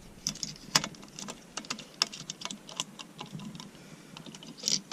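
Irregular light clicks and small rattles of horn-button wires and plastic connectors being tucked into an aftermarket steering wheel hub, with one sharper click just under a second in and a short rustle near the end.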